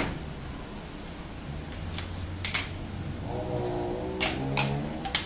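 A few sharp clicks and knocks of kitchen items being handled at the counter, with a low pitched tone under them from a little past halfway.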